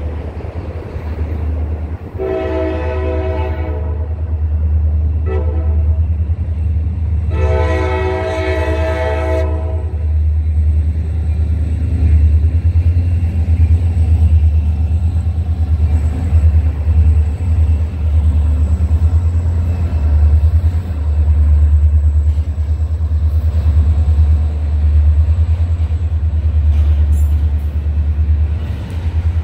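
Diesel freight train approaching: the lead locomotive's air horn sounds a long, a short and a long blast in the first ten seconds, over the steady deep rumble of the EMD two-stroke V16 diesels, which grows louder as the locomotives close in. A few sharp clicks of the wheels come near the end.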